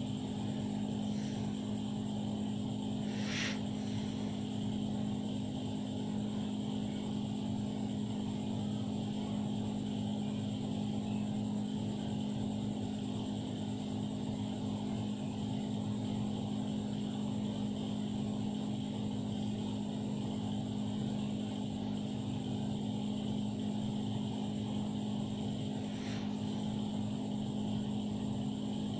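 Steady low mechanical hum, unchanging throughout, with one faint tap about three and a half seconds in.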